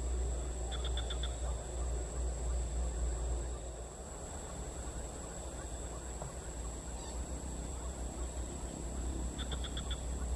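Outdoor ambience by a pond: a steady high insect drone over a low rumble. A short, rapid bird call of about five quick notes comes twice, about a second in and again near the end.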